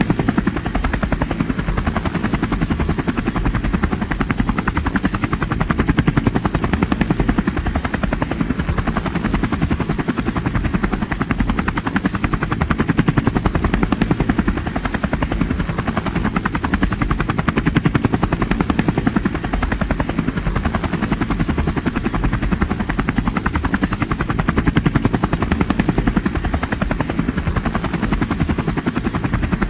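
Helicopter rotor running steadily, a fast, even chopping beat with a low rumble, unchanging in pace and loudness.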